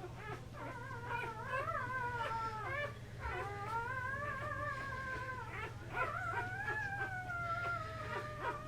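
Two-day-old Dutch Shepherd puppy crying in three long, high, wavering wails, each lasting two to three seconds, with short gaps about three and six seconds in.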